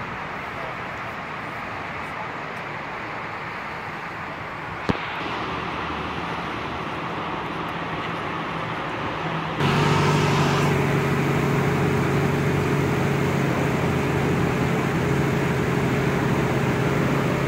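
Lamborghini Aventador S's V12 engine starting up about ten seconds in: it comes on suddenly, louder for the first second, then settles into a steady idle. Before that, steady background noise with one sharp click.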